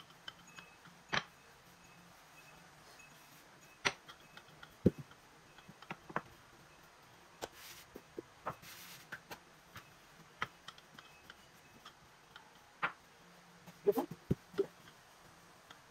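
Scattered light taps and clicks, about ten of them at uneven intervals over quiet room tone, from hands working bread dough into flat rounds on a kitchen surface.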